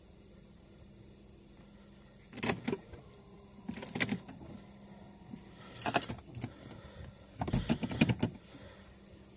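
Bunch of car keys jangling on the ignition key ring in four short bursts, over a faint steady hum.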